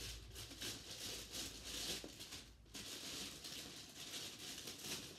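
Faint rustling and light irregular tapping of things being handled close to the microphone.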